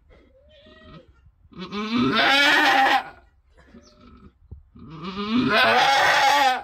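Boer goat doe bleating while straining in labor: two long, loud, wavering calls, one about a second and a half in and one near the end, after a faint short one.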